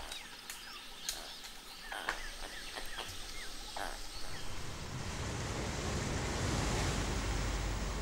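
Forest ambience with a few short chirping calls and light clicks and rustles, then a steady rushing of surf that swells in from about halfway.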